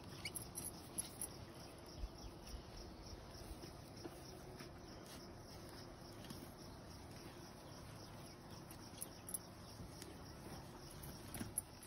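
Quiet outdoor background with faint insect sounds and a few light clicks and taps, mostly in the first couple of seconds.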